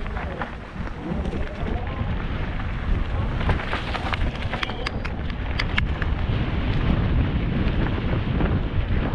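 Mountain bike descending a dirt forest trail at speed: wind rumbling on the helmet camera's microphone over the tyres on the dirt, with sharp rattles and knocks from the bike over bumps, thickest about three to six seconds in.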